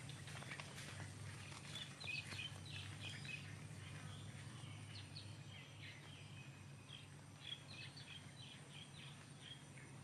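Small birds chirping in many short, high calls over a steady low hum.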